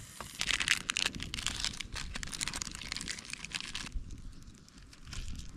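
Plastic instant-noodle packet crinkling as it is handled and opened, a dense run of crisp crackles that stops abruptly about four seconds in, leaving only faint scattered clicks.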